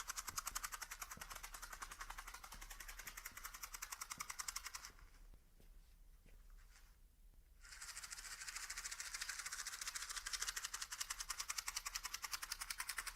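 A fast, even, high-pitched rattling that dies away about five seconds in and returns close to three seconds later.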